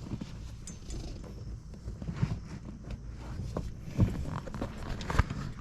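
Rubber shift boot being worked down over a truck's gear shift lever: irregular rubbing and creaking with a few sharp knocks, the loudest about four and five seconds in.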